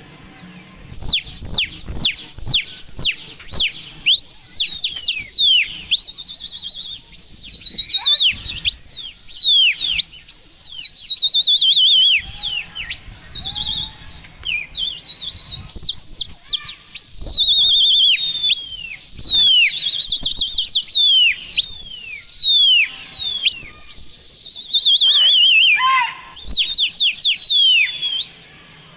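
Loud, shrill human whistling in quick sweeping notes and long warbling trills, repeated with only brief breaks: a pigeon keeper whistling to work the pigeons in flight.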